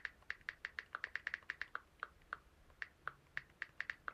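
Typing on a computer keyboard: a quick, uneven run of faint key clicks, thinning out for a moment in the middle.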